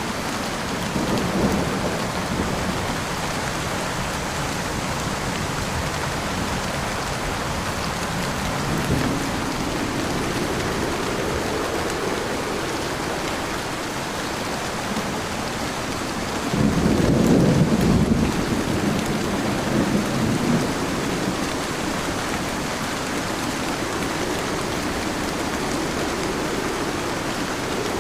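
Heavy rain pouring steadily, with rolls of thunder rumbling through it; the loudest and longest rumble comes a little past the middle and lasts several seconds.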